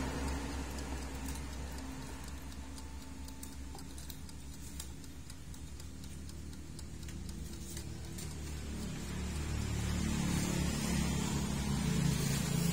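Steady low background rumble with faint scattered clicks and rustles of hands handling wires and a small glue bottle. From about nine seconds in, sustained low tones come in and grow louder.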